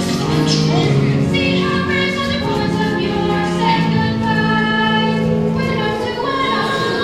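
Chorus of teenage voices singing in a live stage musical, holding long notes together with music under them.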